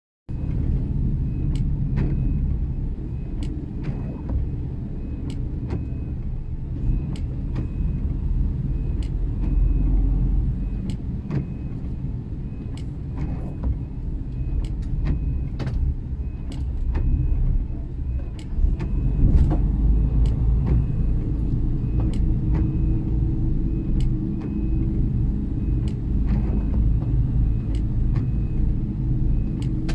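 Steady low engine and road rumble heard from inside the cab of a large vehicle crawling in slow traffic, growing somewhat louder a little past halfway. A regular light ticking runs over it, about once a second.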